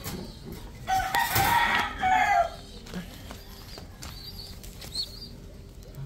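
A rooster crowing once, starting about a second in and lasting about a second and a half, dropping in pitch at the end. Under it is the rustle and wing-flapping of a young pigeon being grabbed in a wire cage.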